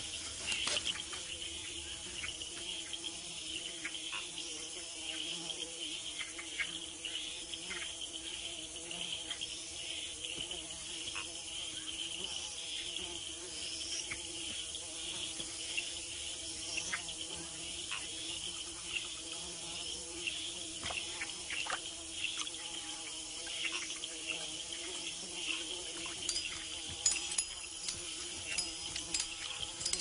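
Rainforest insect chorus: a steady high-pitched buzzing with a lower steady hum beneath it, and scattered clicks and ticks, more of them near the end.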